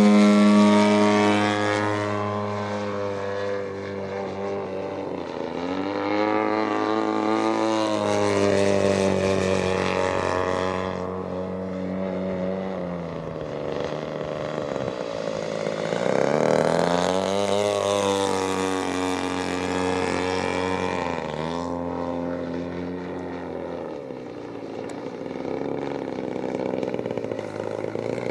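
Engine and propeller of a 104-inch Slick RC aerobatic plane in flight. The pitch and loudness rise and fall as it climbs, dives and passes, with high-revving swells at the start and again about two-thirds through.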